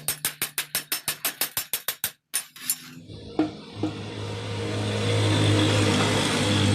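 Rapid, even ticking for about two seconds. Then, from about three seconds in, a steady hiss with a low hum that builds up and holds, typical of an electric welding arc burning.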